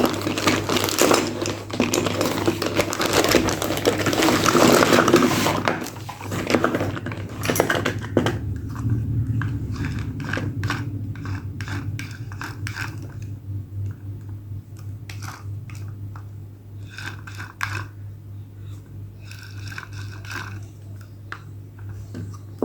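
Packaging crinkling and scraping while toy cars are unboxed: dense and loud for the first eight seconds or so, then quieter scattered clicks and taps of handling. A steady low hum runs underneath.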